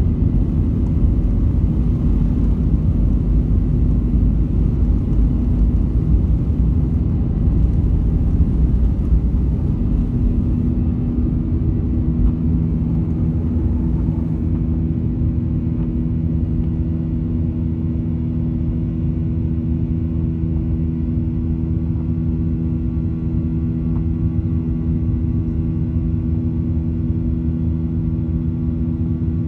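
Boeing 737-800's CFM56-7B turbofans at takeoff thrust, heard from the cabin over the wing, with a heavy runway rumble. The rumble eases about a third of the way in as the airliner lifts off, leaving a steady engine drone with a few held tones through the climb.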